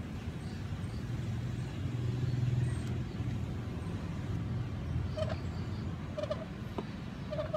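Steady low rumble of road traffic, swelling about two seconds in, with three short squeaky notes about a second apart near the end.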